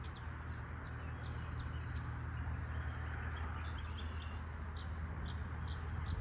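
Small birds chirping in short, high calls repeated about every half second, over a steady low hum.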